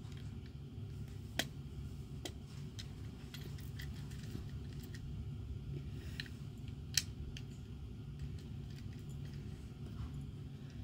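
Plastic LEGO bricks clicking and rattling as pieces are handled and snapped together, with two sharper clicks, one about a second and a half in and one about seven seconds in, over a steady low background hum.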